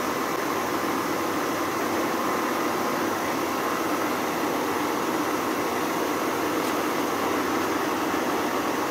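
Schaublin 52 milling machine running under power feed: its spindle motor and noisy feed drive make a steady mechanical run, while a face mill cuts along a cast aluminium block.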